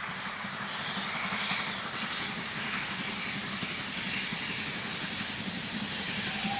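Steam locomotive running with a train, a steady hiss of steam and running noise growing louder as it approaches.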